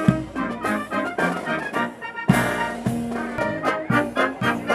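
A Marine Corps brass band of trumpets, trombones and sousaphone playing a tune, with a sharp, loud accent just over two seconds in.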